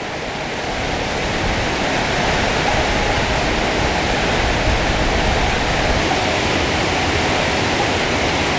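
Large waterfall in heavy flow after heavy rain: a steady, dense rush of falling water that swells up over about the first second and then holds even.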